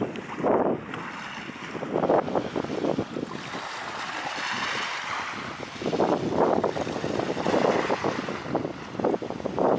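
Gusty wind buffeting the microphone in irregular bursts, over sea waves washing on the shore, with a longer hissing wash about halfway through.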